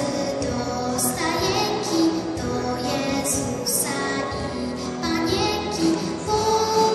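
A girl singing a Christmas carol into a handheld microphone, her voice amplified, in sustained melodic phrases.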